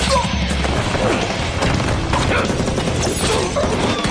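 Action-film fight soundtrack: music under repeated hits and crashes, with voices.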